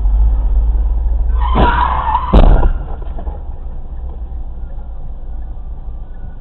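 Car crash picked up by a dashcam: steady road rumble, then tyres skidding for about a second and a half, ending in a loud collision bang about two and a half seconds in.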